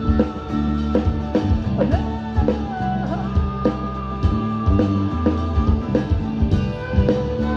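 Live rock trio playing an instrumental passage: drums keeping a steady beat under a bass line, with a lead line of long held notes that bend and slide in pitch, most clearly about two to three seconds in.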